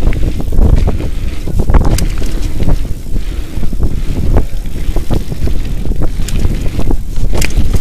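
Wind buffeting the microphone over a steady rumble of mountain bike tyres rolling on a gravel trail, with frequent irregular clattering knocks as the bike runs over bumps.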